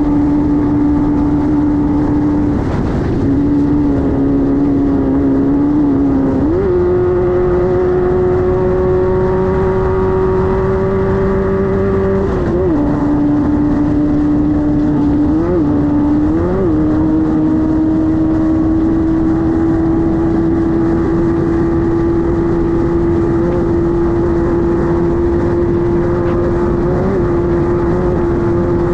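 Air-cooled 1600 cc VW flat-four of a Class 5-1600 desert race car running hard at steady high revs over rough-road rumble. The engine note steps up and down a few times, then holds steady.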